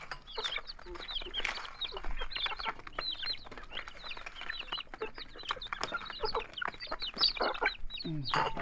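Young chickens peeping in many short, high chirps, one after another, with rustling and light knocks from a woven bamboo basket being handled.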